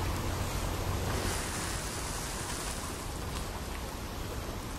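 Steady rushing of wind, with a few faint ticks.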